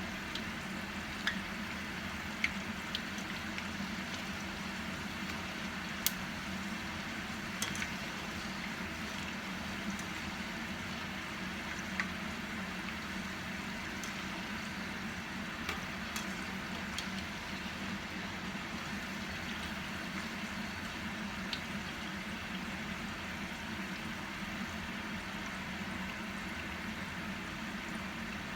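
Hot oil sizzling steadily as diamond-cut maida dough pieces deep-fry, with occasional sharp pops and a steady low hum beneath.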